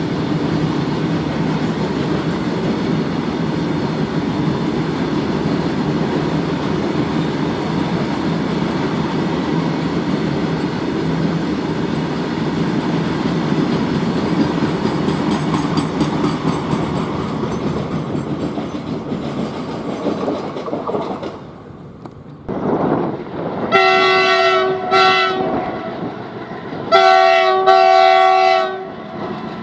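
Twin WDG-4G diesel-electric locomotives running, a steady heavy rumble with wheel clatter that drops away after about twenty seconds. The locomotive's chord horn then sounds twice near the end, each blast lasting one to two seconds.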